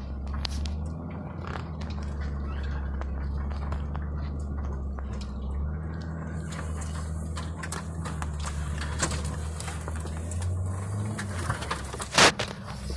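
Ford F-250 pickup's engine running at low speed, heard inside the cab as the truck pushes through tall brush, with stems and branches crackling and scraping against the body. The engine note shifts about halfway through and again near the end, and a loud sharp knock comes near the end.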